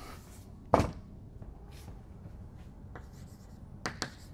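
Chalk writing on a blackboard: short scratchy strokes and taps, with a louder knock about three-quarters of a second in and a few sharper chalk taps near the end.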